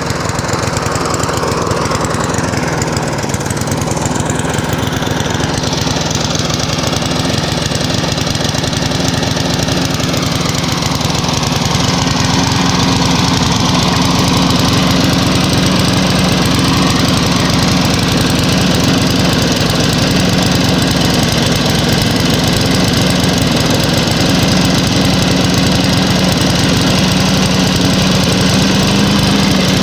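Small lawnmower engine running steadily, getting a little louder about eleven seconds in and then holding, after a spark-plug and air-filter cleaning got it to start.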